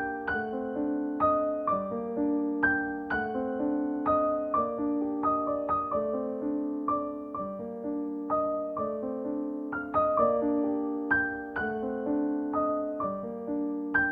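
Soft background piano music: slow, gentle notes repeating in a calm arpeggiated pattern.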